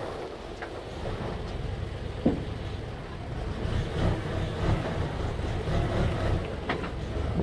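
Isuzu 6x4 dump truck's diesel engine running, its low drone growing louder in the second half. There is a sharp knock about two seconds in, a few lighter rattles, and some wind on the microphone.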